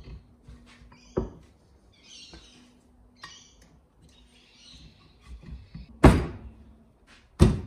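Gloved hands tapping the Suzuki RMX250 crankcase half down onto the other half: soft rubbing and scraping with a light knock about a second in, then two loud thuds near the end as the case halves are driven together.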